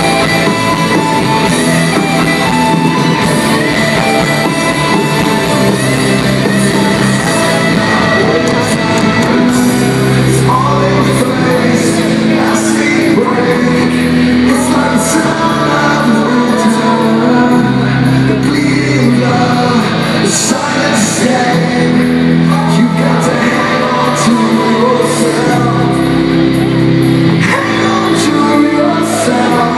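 Live rock band playing in a large arena hall: a male lead vocal sung over electric guitars and drums.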